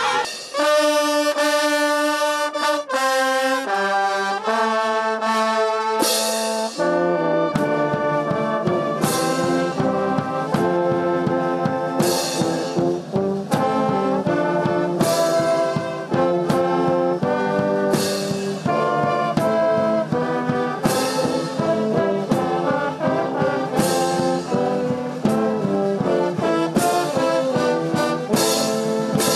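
Brass band playing: slow held chords at first, then about seven seconds in the low brass comes in and the full band plays on, with a sharp strike every three seconds or so.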